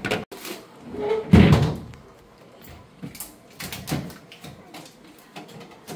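Knocks and clatter of a refrigerator's fittings being handled, with a heavier thump about a second and a half in and smaller clacks after it.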